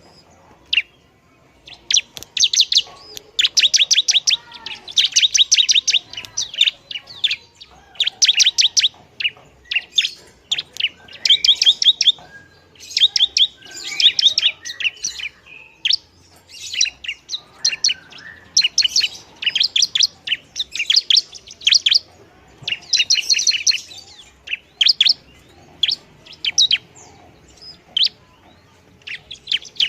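Bar-winged prinia (ciblek) singing busily: rapid, chattering trills of sharp high notes, repeated in bursts of about a second with short pauses between.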